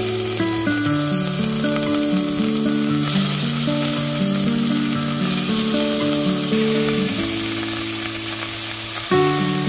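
Pieces of marinated chicken sizzling and frying in hot olive oil in a stainless steel pot as they are added, a steady crackling hiss. Pitched background music plays underneath.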